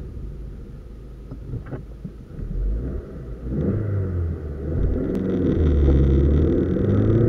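Opel Corsa C's 1.2-litre four-cylinder petrol engine, heard from inside the cabin. It idles quietly at first, then from about halfway in it revs up and pulls away under hard acceleration, growing steadily louder.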